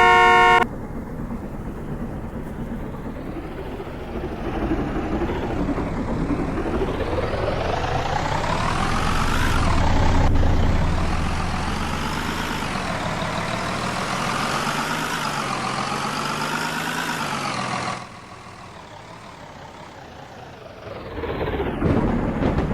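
Motor vehicle engine accelerating, its pitch climbing steadily for several seconds, then holding and wavering before dropping away; a steady horn-like tone cuts off less than a second in.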